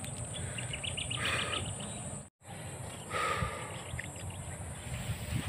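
Open-field ambience: a steady high insect drone with a run of short bird chirps about a second in and another call near three seconds. The sound cuts out for an instant just past two seconds.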